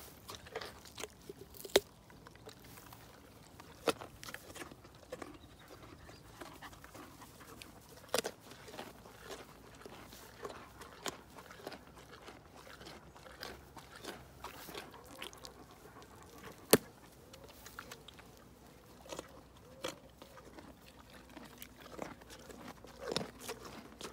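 Carrot being crunched and chewed by a pony and dogs: irregular sharp crunches, a few of them much louder, over faint background sound.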